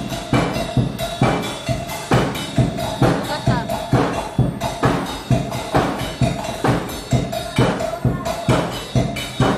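Music with a steady, fast, drum-driven beat.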